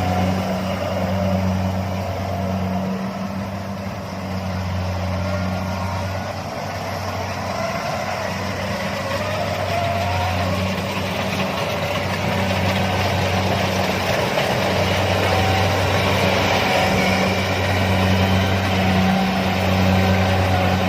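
Kubota DC-70 rice combine harvester running under load. Its diesel engine gives a steady drone that dips and swells a little, with the steady rushing noise of the cutting and threshing machinery on top.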